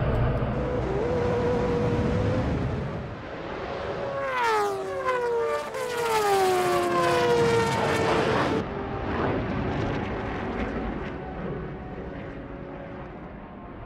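Jet engine rumble, then a racing motorcycle passes at high revs, its engine note sliding down in pitch as it goes by and cutting off abruptly. A lower, quieter jet rumble follows.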